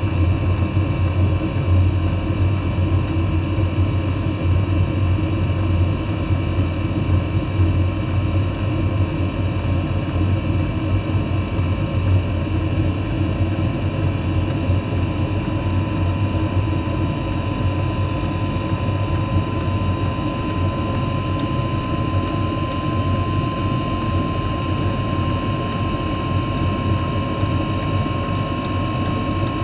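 First-generation Eberspacher Airtronic diesel air heater running through its slow start-up ramp. Steady fan and burner noise over a low hum, with a thin whine that comes in about halfway and slowly grows and rises slightly in pitch as the fan speeds up.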